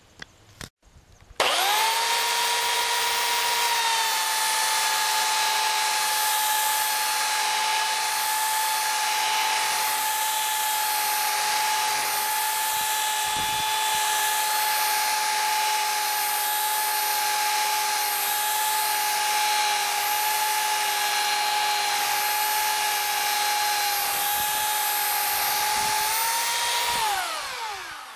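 Handheld electric belt sander switched on and running steadily with a high whine as it sands a cured Flex-Tec HV epoxy repair at the corner of a wooden window frame. It starts about a second and a half in and winds down near the end, the whine falling as the belt spins down.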